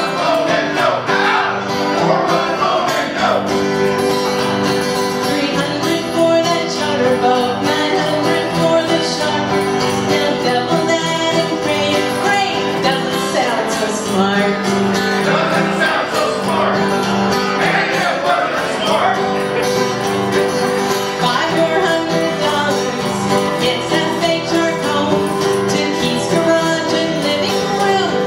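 Live music: an acoustic guitar strummed with people singing along, steady throughout.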